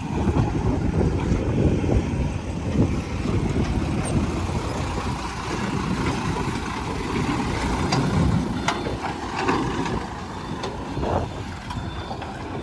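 Fully loaded dump truck driving, its engine a steady low rumble, with a few sharp knocks and rattles about nine seconds in.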